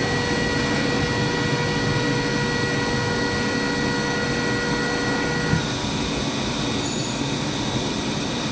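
KTC KMEC 15 rotary screw air compressor running with a steady mechanical hum and a high whine; about five and a half seconds in the whine stops with a small click while the running noise carries on.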